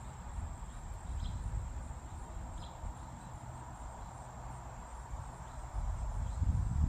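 Insects trilling steadily at a high pitch over an uneven low rumble, with two faint short chirps about one and two and a half seconds in.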